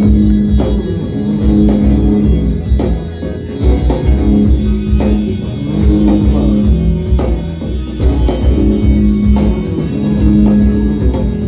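Live band playing an instrumental passage of a rock song, with no singing: upright bass repeating a low riff over steady drum-kit hits, with guitar.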